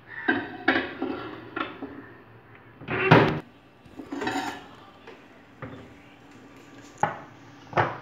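A glass baking dish clattering against a microwave oven as it is handled and slid inside: a series of knocks and clunks, the loudest about three seconds in and two more sharp ones near the end.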